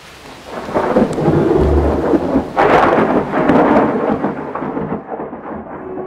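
Thunder in a heavy rainstorm: a rumble builds about a second in, breaks into its loudest crack around the middle, then rolls away over steady rain.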